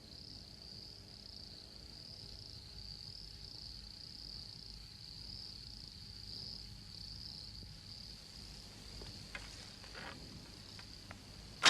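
Jungle insects, cricket-like, trilling in a steady high-pitched chorus, with a few faint clicks near the end.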